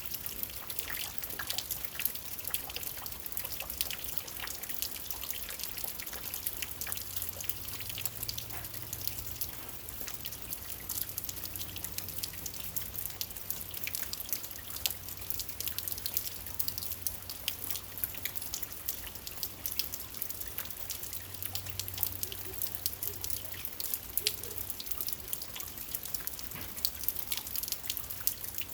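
Steady rain falling, with many individual drops dripping close by.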